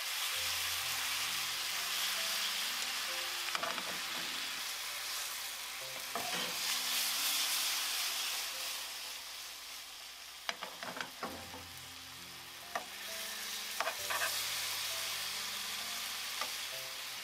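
Pork belly rolls sizzling steadily in oil and a soy-mirin glaze in a frying pan, with metal tongs clicking against the pan several times as the rolls are turned, most often about two-thirds of the way through. Soft background music plays underneath.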